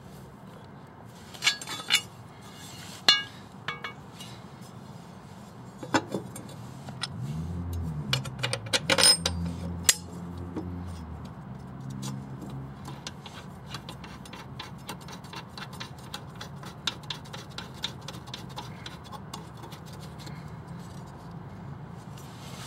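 Metal clinks and knocks as a lawn mower blade is handled and fitted onto its blade adapter on the crankshaft. The sharper knocks come in the first ten seconds, a low drone runs for a few seconds near the middle, and lighter ticking follows.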